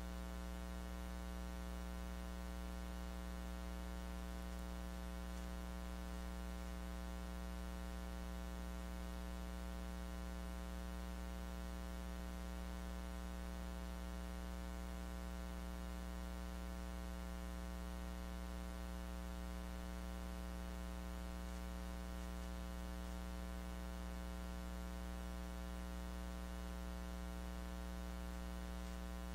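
Steady electrical mains hum with a long ladder of even overtones over a constant hiss, unchanging throughout: the buzz of a recording chain with no real sound on it.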